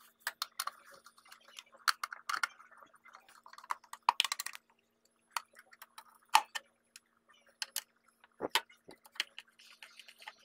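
Irregular metallic clicks and clinks of bolts and hand tools against an aluminium scooter transmission casing as the CVT cover is refitted, with one duller knock about eight seconds in.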